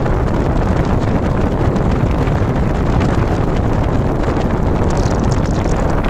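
Air cooler running, its fan blowing a strong stream of air across the microphone: steady, loud wind noise.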